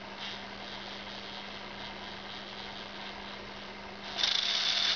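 Lego NXT servo motor running slowly with its wheel gripped by hand, a faint steady hum and whir as it pushes against the grip. About four seconds in there is a louder, hissing whir lasting under a second as the motor strains and the wheel slips.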